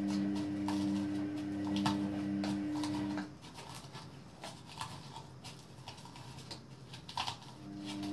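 Pestle working garlic and salt in a mortar: irregular knocks and scrapes, with a steady ringing hum that stops about three seconds in and comes back near the end.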